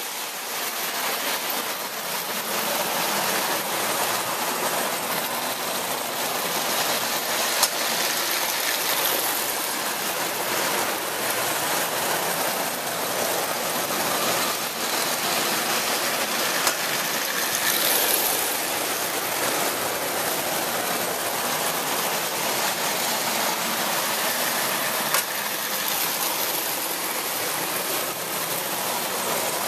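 Three-rail electric toy trains running on a model railroad: a steady whirring rattle of motors and wheels on the metal track, with a couple of sharp clicks.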